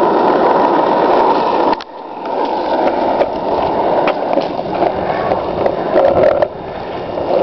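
Skateboard wheels rolling on asphalt: a steady rolling noise that drops off suddenly about two seconds in, then builds again, with a few small clicks and knocks.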